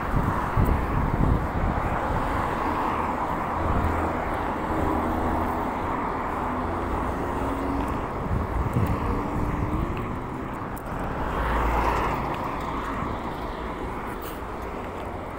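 Street traffic noise: a steady vehicle rumble, with a faint engine tone in the middle and a vehicle passing, swelling louder about eleven to twelve seconds in.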